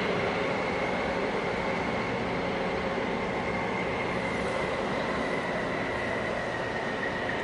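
Steady mechanical drone of a large container ship and its escorting tug passing close by: a continuous rumble with a held high whine over it.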